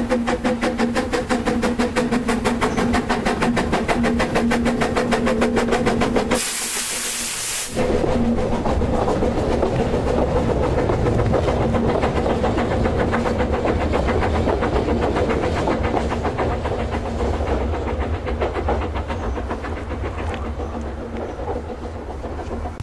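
Narrow-gauge steam locomotive No.1 'Talyllyn', an 0-4-2 saddle tank, working hard on a gradient with rapid, even exhaust beats. There is a loud burst of hissing about six seconds in, then the exhaust and running noise carry on, easing a little near the end.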